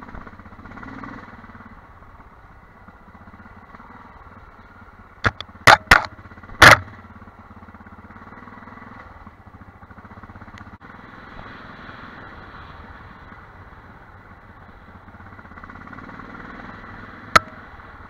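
Armstrong MT500 single-cylinder trail motorcycle engine running steadily at low speed on a rough dirt track. A quick run of four loud, sharp knocks comes about a third of the way in, and one more knock near the end.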